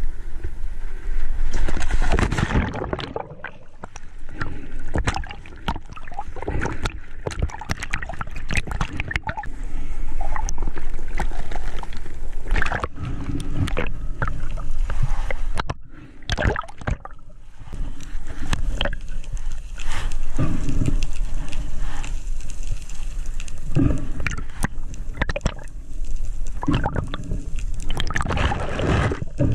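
Splash of a diver entering the sea about two seconds in, then muffled underwater gurgling and sloshing around the camera with many sharp clicks, and louder surface splashing near the end.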